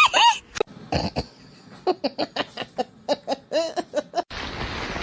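A high-pitched voice giving short calls that rise and fall in pitch, a few at first and then a quick run of about four a second, which cuts off abruptly near the end.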